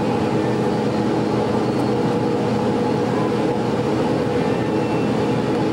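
Steady mechanical hum: an even drone with several held low tones that does not change.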